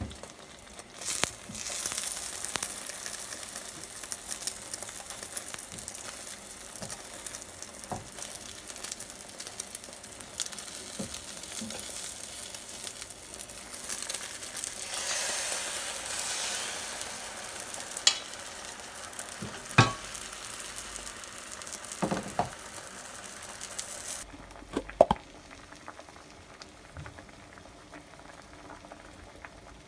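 Beaten egg sizzling in a hot nonstick frying pan, the sizzle growing louder for a few seconds after more egg is poured in about halfway through. A few sharp clicks sound over it, and the sizzling drops away about three-quarters of the way through.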